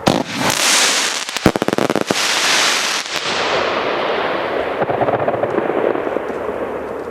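Tropic TB22 20-shot firework cake going off: sharp bangs, with a rapid string of crackling pops in the second second and loud hissing between them, then a softer fading crackle and hiss.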